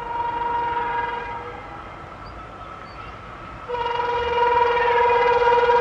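WAP7 electric locomotive's horn sounding twice: one blast that dies away after about a second and a half, then a second, louder blast from a little past the middle that is still held at the end.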